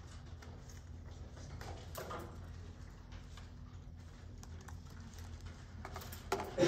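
Scissors snipping and paper rustling as paper templates are cut out, over a steady low room hum, with a louder knock near the end.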